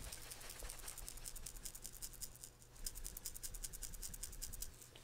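Faint, quick small clicks and crackles of a 3D-printed PETG sheet of rattle cylinders being flexed and handled in the fingers.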